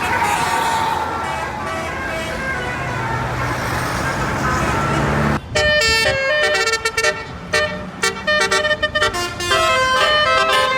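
Road noise with a bus engine running and faint horn notes, then about five seconds in a Basuri multi-tone 'telolet' bus horn starts playing a tune, its notes jumping quickly from pitch to pitch.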